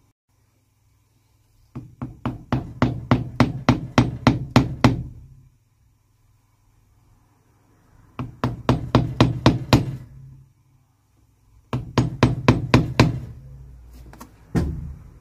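Cobbler's hammer striking the leather sole of a shoe held on an iron shoe jack, in three runs of quick taps, about four a second, with pauses between them, and a single knock near the end.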